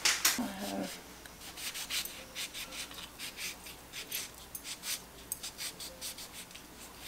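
A knife sawing through a lemon held in the hand: a run of short scraping strokes, about two or three a second, after a louder knock in the first second.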